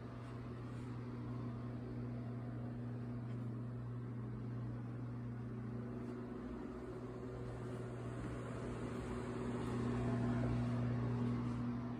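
A steady low mechanical hum, swelling slightly about ten seconds in.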